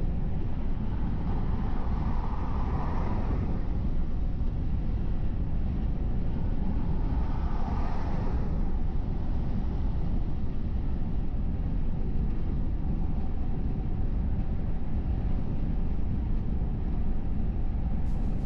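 Car driving on a freeway: a steady low rumble of road and engine noise, swelling briefly twice, about two to three seconds in and again about eight seconds in.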